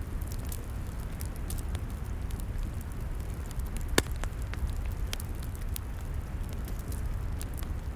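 Log fire crackling, with scattered small pops and one sharp, loud pop about halfway through, over a steady low rumble.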